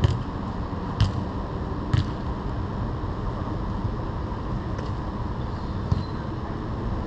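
Sharp thuds of a football being kicked, three about a second apart at the start and another near the end, over a steady rushing background noise.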